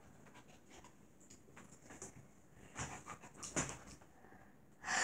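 A dog whimpering in a few short sounds, about three seconds in and again half a second later, over quiet room tone.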